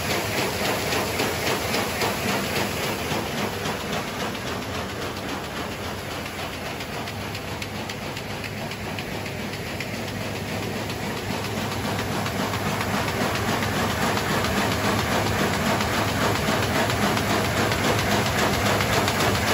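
A220 high-speed paper bag making machine running, a steady rapid mechanical clatter. It grows quieter for a few seconds in the middle and louder again towards the end.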